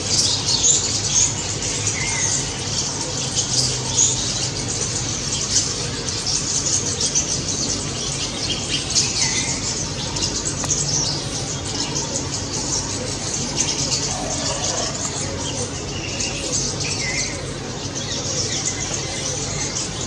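A flock of rosy starlings chattering in a tree: a dense, continuous high chatter of many overlapping calls, with a few lower falling calls standing out now and then.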